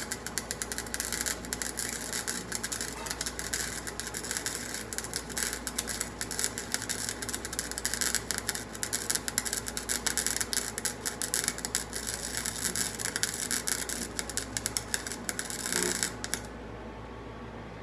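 Flux-cored wire welder arc crackling steadily as a bead is run to reattach a broken pulley, then stopping suddenly about a second before the end. A low steady hum continues underneath.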